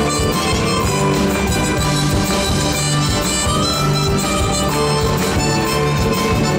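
A harmonica playing a melody into a handheld microphone over steady backing music.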